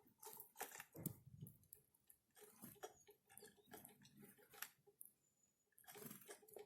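Faint, irregular tapping and cracking of small birds pecking and husking seeds at a winter feeding spot, with a brief faint high chirp about four seconds in.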